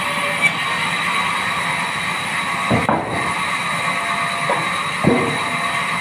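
Large vertical band saw running steadily, with a constant whine, while wooden planks are handled on its table, giving short knocks about three seconds in and again about five seconds in.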